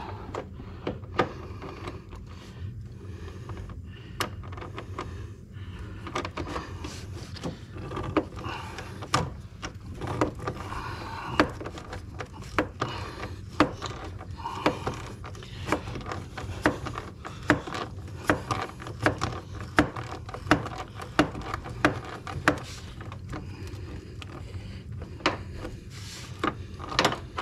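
Metal hand tools clicking and clinking irregularly against a bolt and the surrounding parts as a wrench with a socket and extension works a hard-to-reach 10 mm fan-shroud bolt, over a steady low hum.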